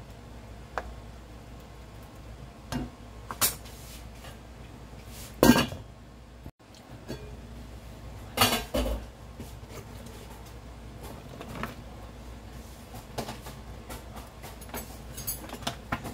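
A black ladle clinking and knocking against a stainless steel cooking pot in irregular, scattered strokes. The loudest knocks come about five and a half seconds in and again around eight and a half seconds.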